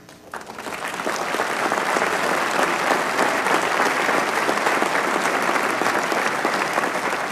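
Large audience applauding: many hands clapping at once, swelling over the first second and then holding steady.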